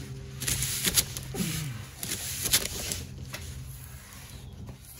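A rag scrubbing spilled motor oil off a concrete floor in repeated rough strokes, over a steady low hum.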